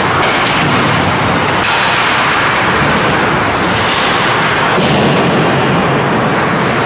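Ice hockey rink during play: a steady loud noise of the arena, with a few sharp clicks of sticks or puck in the first half.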